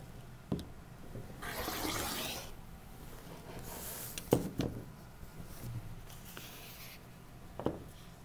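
Rotary cutter blade rolling along an acrylic quilting ruler, slicing through folded cotton fabric on a cutting mat with one rasping stroke about a second and a half in. A softer scrape follows near the middle, and there are a few light knocks as the ruler and cutter are handled.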